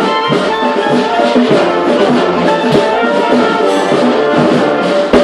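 Community street brass band playing a tune together: trombones and trumpets over a steady percussion beat.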